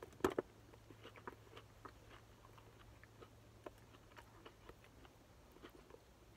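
A person chewing a mouthful of burger with the mouth closed: faint, irregular small clicks and smacks, with a couple of sharper clicks just after the start.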